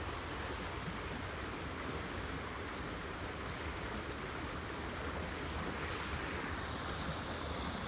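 Steady outdoor ambience of a wide river flowing, with wind rumbling on the microphone.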